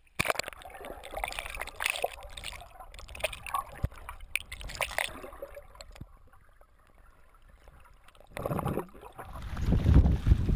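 Icy seawater sloshing, trickling and gurgling around a camera dipped below the surface, with irregular small splashes, a quieter lull past the middle, and louder low rushing water near the end.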